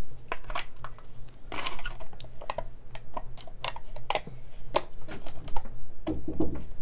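A plastic yogurt tub and its seal and lid being handled and pressed closed: a run of irregular light clicks and crinkles, over a steady low hum.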